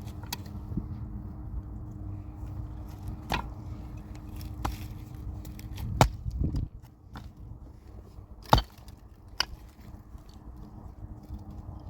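Firewood being chopped: about six sharp, irregularly spaced strikes over a steady low rumble.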